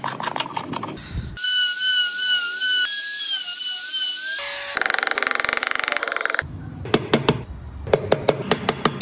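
A small handheld trim router running with a high whine that wavers in pitch as it cuts a recess in hardwood, starting about a second and a half in. Before it, quick scraping strokes of a hand chisel paring wood; after it, a dense rasping and then a run of sharp taps from a wooden mallet.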